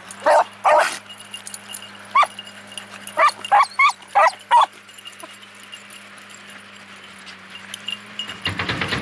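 Beagles barking while running, about eight short calls in the first five seconds, some in quick succession. Road construction equipment runs steadily underneath, growing louder near the end.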